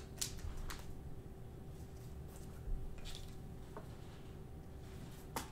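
Soft handling sounds of a trading card and a clear plastic sleeve and toploader: a few brief slides and light clicks as the card is slipped into its holder, over a faint steady hum.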